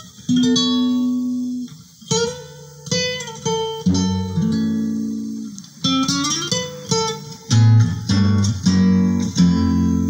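Recorded acoustic guitar music played back through homemade loudspeakers: plucked single notes and chords that ring and fade, with bass notes joining about four seconds in. This is the guitar introduction to a samba-canção.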